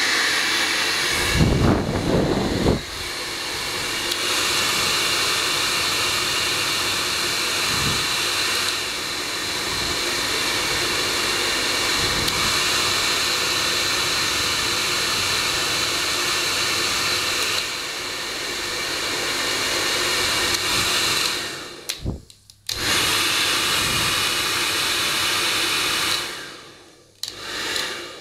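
Hair dryer blowing steadily, a rush of air with a thin whine over it and a brief low rumble about two seconds in. Near the end it cuts out briefly twice, the second time fading down before coming back on.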